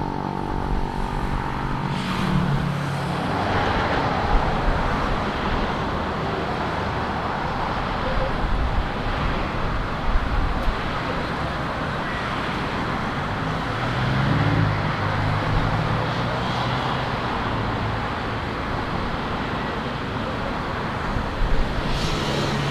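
Steady road traffic noise with vehicles passing. Low engine hums swell briefly about two seconds in and again about two-thirds of the way through.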